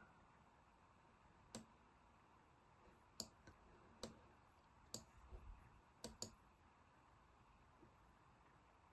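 Faint computer mouse clicks, about eight sharp clicks spread unevenly through the middle of the pause, over near silence.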